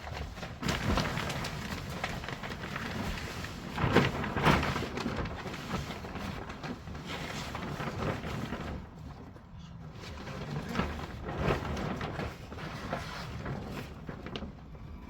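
Polythene damp-proof membrane sheeting rustling and crackling as it is spread out and handled, in uneven swells.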